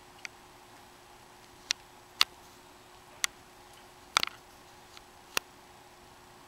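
Scattered sharp clicks, about six at uneven intervals, one of them a quick run of three about four seconds in, over a faint steady hum.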